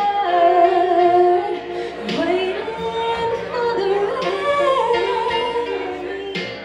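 A woman singing through a handheld microphone over karaoke backing music, holding long notes, with her voice rising in pitch about two seconds in.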